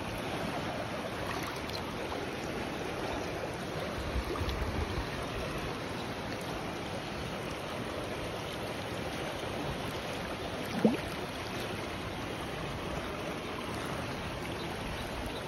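Steady rush of a river running high past the bank. A brief low rumble comes about four seconds in, and a short rising tone near eleven seconds.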